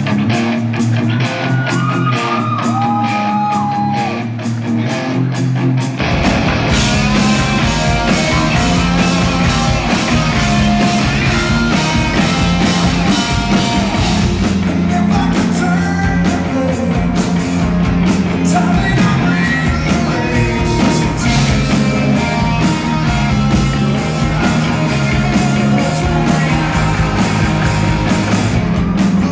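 Live rock band playing, heard from the audience. A sparse opening with a few held notes gives way about six seconds in to the full band of drums, bass and electric guitars, with a male lead vocal over it.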